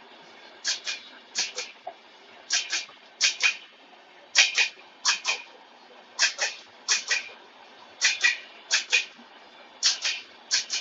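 Passenger coach wheels of the Puri–Valsad Superfast Express clattering over a rail joint as the train passes: sharp double clacks, two doubles close together, the pattern repeating about every two seconds as each coach goes by, over a faint rolling rumble.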